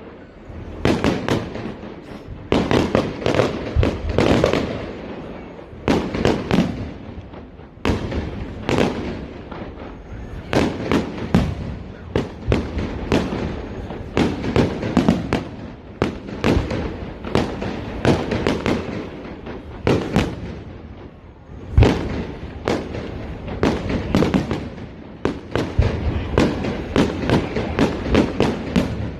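Fireworks display: a near-continuous run of bangs and crackles from bursting shells, in clusters every second or two, with one sharp, louder bang about three-quarters of the way through.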